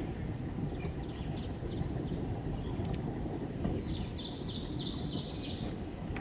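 A songbird sings a quick run of repeated high notes about four seconds in, with a few faint chirps earlier. Under it runs a steady low rumble.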